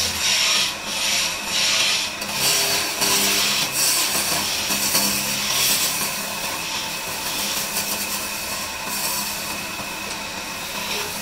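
Hand-held turning chisel cutting into a wooden table-leg blank spinning on a lathe: a continuous rough scraping hiss that swells and eases as the tool is pressed in and moved along.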